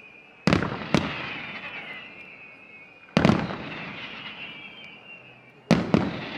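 Aerial firework shells bursting: two sharp bangs half a second apart near the start, another about three seconds in, and two more near the end. Each bang trails off over a couple of seconds.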